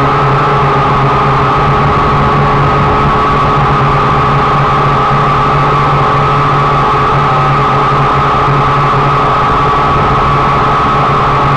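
Multirotor drone's electric motors and propellers running, a steady loud whine and buzz picked up by the drone's own onboard camera as it climbs.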